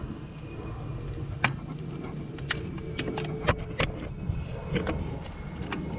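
Scattered sharp metallic clicks and clinks of hand tools as a socket is changed on a ratchet and extension, over a steady low hum.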